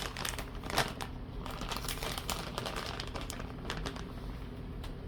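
Plastic bag of shredded cheese crinkling as it is handled, with irregular crackles that thin out after the first couple of seconds.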